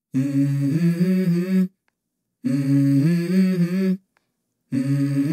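Music intro: a voice humming a short melody in three phrases of about a second and a half each, with short silences between them.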